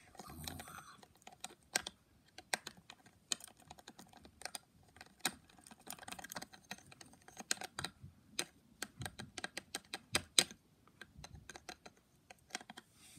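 Plastic toy toothbrush scrubbing against a Baby Alive doll's hard plastic mouth: irregular scratchy clicks, several a second.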